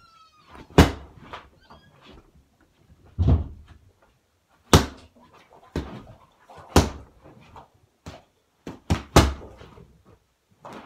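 Punches and kicks landing on a freestanding punch bag: about nine sharp hits at an uneven pace, the bag knocking as it rocks on its base.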